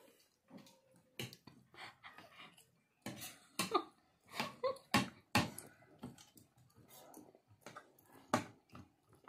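Metal forks and spoons clinking and scraping against plates as momos are picked up, heard as irregular short clicks.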